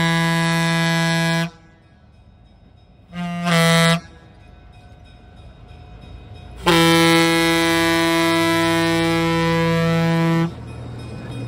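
Air horn of CB&Q 9911A, a 1940 EMD E5A diesel-electric locomotive, sounding the grade-crossing pattern as it nears a crossing: the end of a long blast, a short blast about three seconds in, then a long blast of nearly four seconds. After the horn stops, the locomotive's rumble is heard as it comes close.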